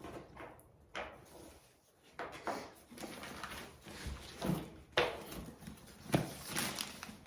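Irregular rustling and handling of packaging and a leather tote bag as it is unwrapped and lifted out. There are a few sharper clicks or knocks about one, five and six seconds in.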